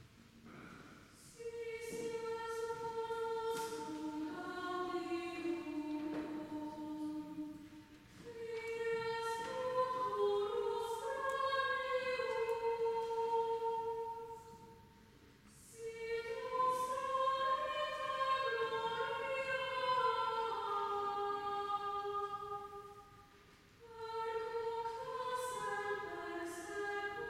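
Small a cappella choir singing a Lenten hymn in harmony, in long sustained phrases with brief pauses for breath between them, in a reverberant church.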